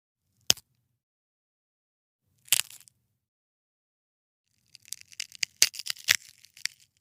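Bone-cracking sound effects: a single sharp snap, then a short crunchy crack, then a quick run of a dozen or so cracks and pops lasting about two seconds, with dead silence between them.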